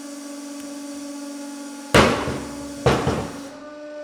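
A 150-ton hydraulic press's pump hums steadily while its ram crushes a roll of string. The roll bursts with two sharp bangs about a second apart, the lines snapping in two goes rather than all at once.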